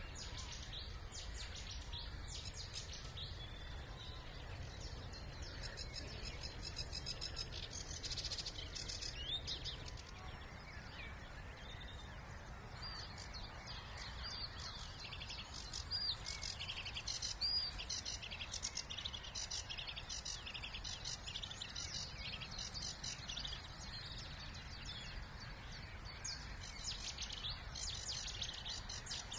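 Several songbirds singing at once, overlapping chirps and quick trills, over a steady low rumble.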